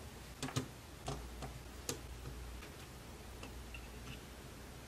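Light, irregular clicks and taps of small plastic model steel-coil loads being set onto an HO-scale coil car's deck, over a faint low hum.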